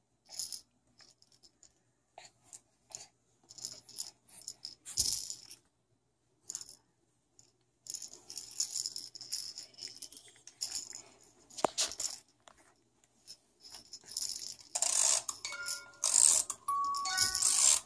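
Baby's rattle socks shaking in short, irregular bursts of rattling as she kicks her feet, with a couple of soft thumps. About fifteen seconds in, a crib mobile starts playing a chiming tune over the rattling.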